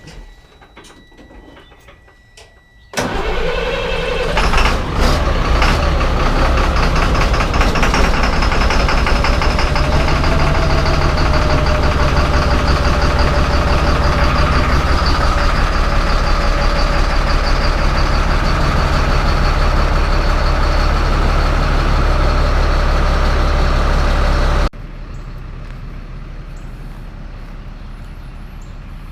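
Truck engine starting about three seconds in, catching with a short rise in pitch, then running steadily at idle; the sound drops off sharply near the end.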